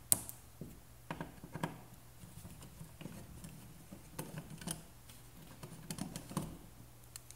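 Screwdriver backing out the screws of a stainless steel switch faceplate: scattered small clicks and scrapes of metal on metal, the sharpest click just after the start.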